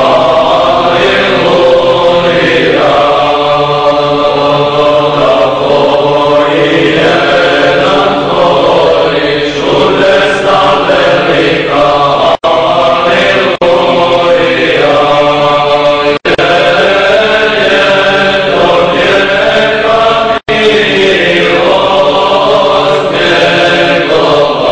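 Orthodox church choir chanting in several voices, long held notes over a steady low held tone. The sound cuts out for a split second three times in the second half.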